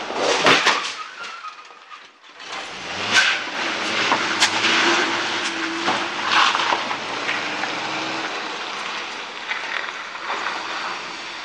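A car crashing into parked cars: a loud crunching impact about half a second in. An engine then runs steadily for several seconds, with more bangs and scrapes of metal on metal as the cars are shoved.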